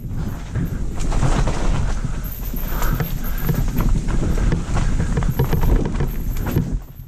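Mountain bike riding fast over rough trail, with tyres and frame clattering over roots and rocks in a run of sharp knocks, and wind rumbling on the microphone. The noise dies away near the end.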